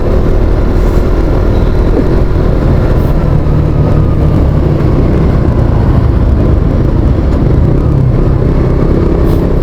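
Motorcycle engine running at a steady cruise, under a loud, steady low rumble of wind and road noise.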